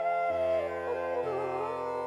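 Background music: a slow, ornamented melody sliding between notes over a steady low drone, in an Indian classical style.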